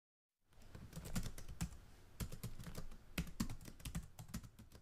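Typing sound effect: fast, irregular clacking of computer keys, starting suddenly out of dead silence about half a second in.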